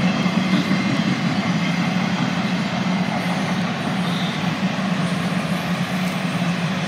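CSX freight train of enclosed autorack cars rolling past, a steady noise of wheels on the rails.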